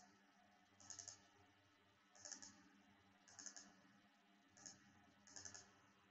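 Faint computer mouse clicks over near silence: about five short bursts roughly a second apart, several of them quick double-clicks opening folders.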